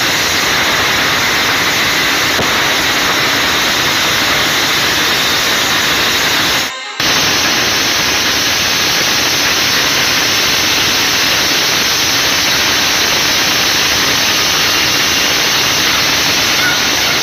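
Loud, steady rush of storm noise: strong wind and rain on the microphone. It drops out briefly about seven seconds in.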